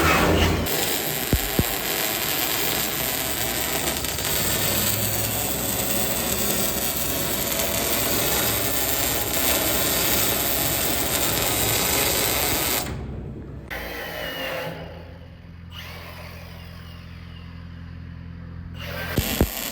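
Welding along the seam inside a precast concrete shelter, a steady crackling hiss that stops abruptly about two-thirds of the way through. A quieter low hum is left after it stops.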